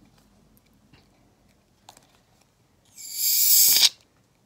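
A can of shaving cream shaken hard for just under a second, a loud rustling hiss that starts about three seconds in and stops abruptly.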